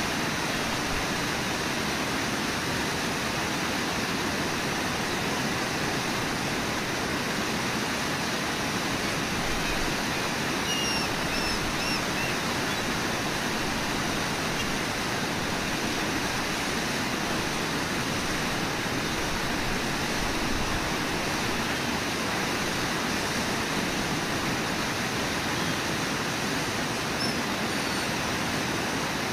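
Steady rush of whitewater in a river's rapids.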